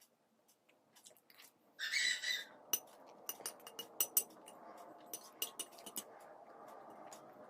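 Spoon scraping and clinking against a plate of poha while eating. There is one louder scrape about two seconds in, then a run of light clinks.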